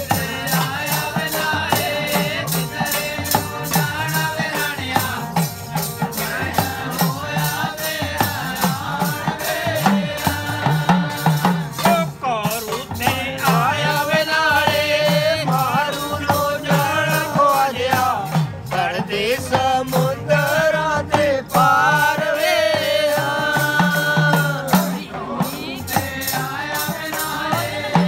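Gugga devotional folk song: a singing voice with rhythmic percussion from a dholak hand drum and a rattling jingle keeping a steady beat.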